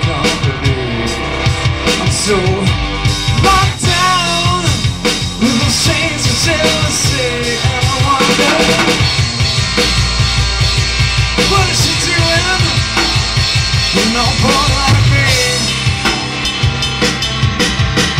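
A live rock band playing: electric guitars over a drum kit beat, with a wavering melody line on top.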